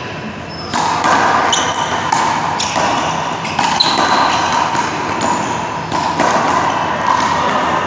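A one-wall handball rally: the small rubber ball slapped by gloved hands and smacking the wall in a run of sharp knocks, with sneakers squeaking and scuffing on the court floor.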